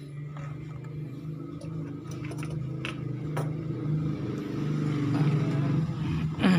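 A motor vehicle engine running steadily and growing gradually louder, with a few faint clicks over it.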